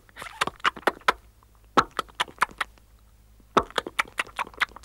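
Cartoon sound effect of light, quick tapping clicks in three short runs, set to a white clay lump shifting and changing shape.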